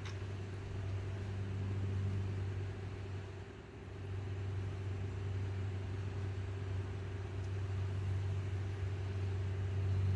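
A steady low hum, dipping briefly about three and a half seconds in.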